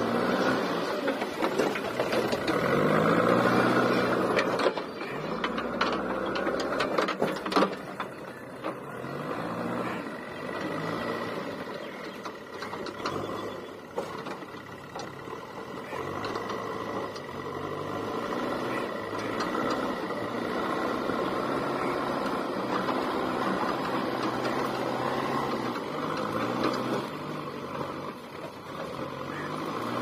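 JCB 3DX backhoe loader's four-cylinder diesel engine working under load, its pitch rising and falling as the front loader bucket pushes and lifts soil. There are scattered knocks and clatter in the first several seconds.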